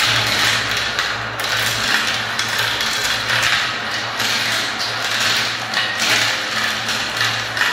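Many marbles rolling and rattling around the clear plastic funnel bowls of a marble run and dropping through its plastic tubes: a continuous, dense clatter of small clicks.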